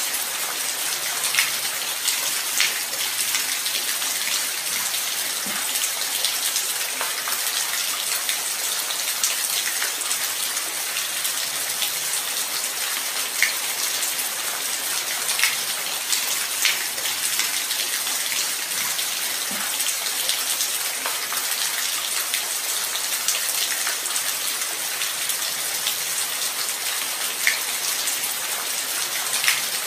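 Light rain falling steadily, a high hiss with single drops ticking sharply now and then.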